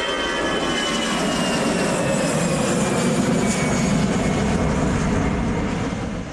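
Citilink Airbus A320's twin jet engines at takeoff power as the airliner climbs away just after liftoff. A loud steady roar carries a high whine that slowly falls in pitch, and it fades out near the end.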